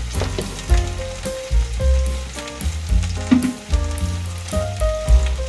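Sliced onions sizzling and crackling in hot oil in a black iron kadai, a spatula stirring them with turmeric powder. Under the sizzle run steady low tones that change step by step.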